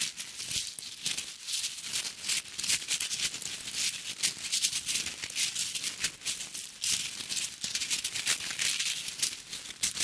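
Sound effect of a tiny creature burrowing and rustling: dense, uneven scratchy rustling in quick clusters, mostly high in pitch.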